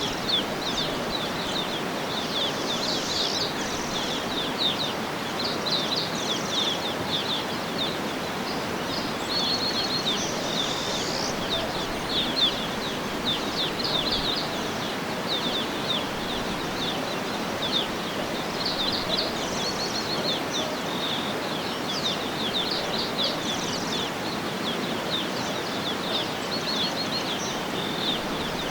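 Many small birds chirping and twittering in quick, overlapping bursts over a steady rushing background noise.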